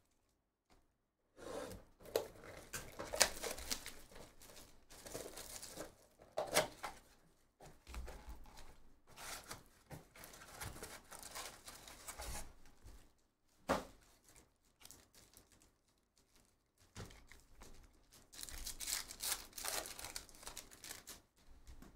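Hands opening a Topps Chrome card box and tearing open its foil card packs: irregular crinkling and tearing of the wrappers, with one sharp click partway through and the densest crinkling near the end.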